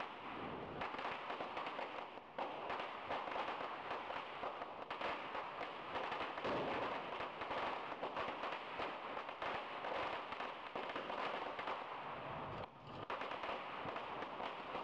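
Firecrackers going off on the ground in fast, continuous crackling pops, with a brief break about two seconds in and another near the end.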